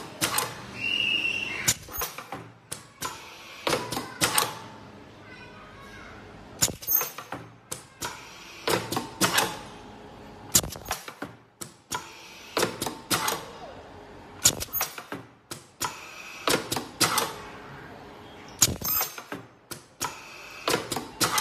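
Semi-automatic face mask ear loop welding machine at work: sharp clicks and clunks of its pneumatic welding head cycling as masks are fed in and ear loops welded on, coming in clusters about every two seconds.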